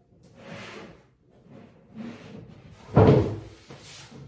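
Flat-pack furniture panels being handled, with quiet knocks and scraping, then one loud thud about three seconds in.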